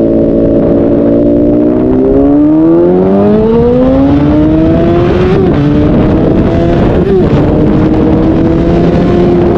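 Honda CBR1000RR inline-four engine running steadily, then accelerating with its pitch rising over a few seconds. The pitch breaks briefly twice, a little past halfway and about two seconds later: upshifts as the bike keeps pulling.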